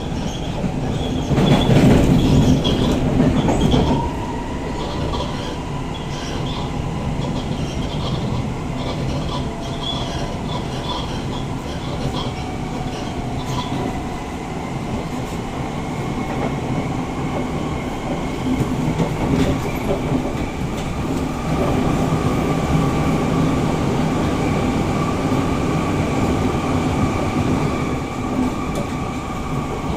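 Siemens C651 metro train heard from inside the carriage while running: wheel-and-rail noise with a steady motor whine and repeated clicking, louder for about two seconds near the start. The uploader points to a weird sound from the bogie on this trainset.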